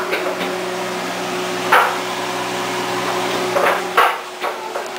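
Luchi deep-frying in a small pot of hot oil, sizzling steadily, with a few sharp knocks of the metal spoon against the pot, the loudest about two seconds in.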